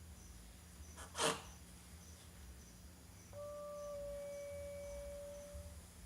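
A steady electronic tone from a parked, switched-off Kawasaki Ninja 300, held for about two and a half seconds. It comes a couple of seconds after a brief, loud burst of noise, and the owner takes it for an electronic sound rather than an animal. Crickets chirp faintly in the background.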